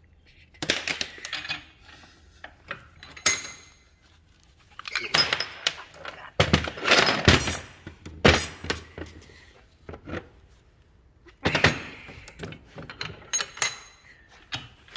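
Metal clanking and clattering: heavy differential parts and steel tools knocked and set down on a steel workbench, in several bursts of sharp knocks, some leaving a brief ringing.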